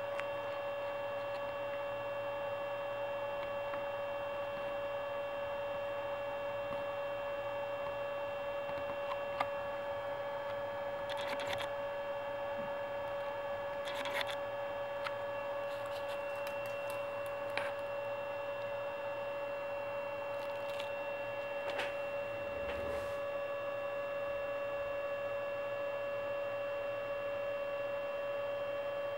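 Steady electrical hum: one strong even tone with fainter higher tones above it, with a few faint ticks here and there.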